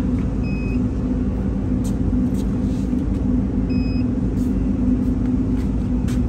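Steady low machine hum and rumble with a constant deep drone. Two short high beeps sound, about half a second in and again a little before the four-second mark.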